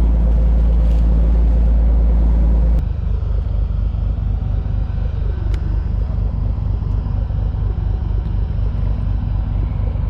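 Fishing boat's engine running loud and steady, then dropping abruptly about three seconds in to a quieter, pulsing low idle.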